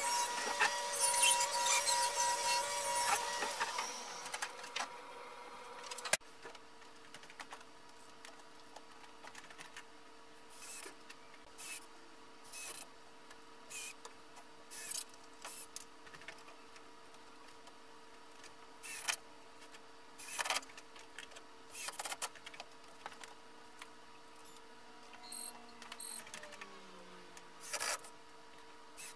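A loud, steady mechanical sound stops abruptly about six seconds in. Then come about a dozen short bursts of a cordless drill driving screws into the pool table's rails, spread over the next twenty seconds.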